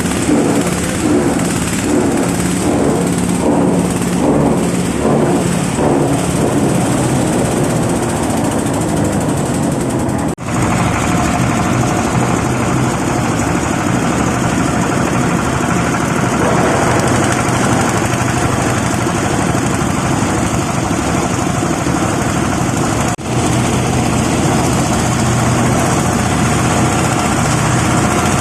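Empty oil palm fruit bunch crusher running, a loud, steady mechanical drone with an even pulsing through the first few seconds. The sound drops out very briefly twice.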